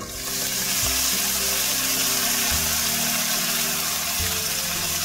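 Raw prawns hitting hot coconut oil in a frying pan, setting off a loud, steady sizzle that begins the moment they land.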